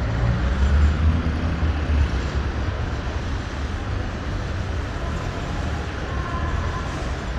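Road traffic: car and truck engines and tyres making a continuous low rumble, a little louder in the first second or two as a vehicle passes close, then steady.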